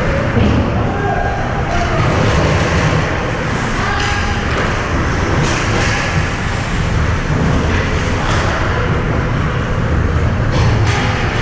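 Ice hockey rink ambience: a steady low rumble with scattered thuds and knocks against the boards, and a faint murmur of voices.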